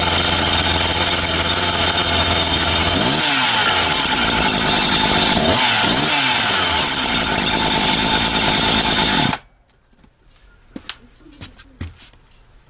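Husqvarna two-stroke chainsaw running at high revs straight after starting, the start that the uploader says is normal for some saws. The pitch shifts briefly twice, and the engine cuts off suddenly about nine seconds in, followed by a few light clicks and knocks.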